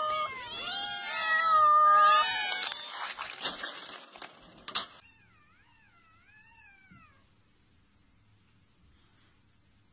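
Several cats meowing loudly and over one another, begging for food. After about two and a half seconds this gives way to a rattling patter of dry cat kibble scattering onto wooden decking. After a cut there is a faint wavering high-pitched call for about two seconds, then near silence.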